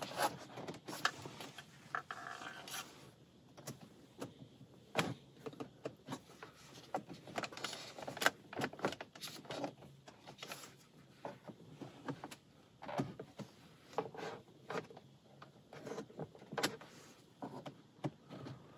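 Fingers working at a plastic dashboard trim panel: scattered, irregular clicks, taps and scrapes of plastic as the cover panel is pulled at to free its clips.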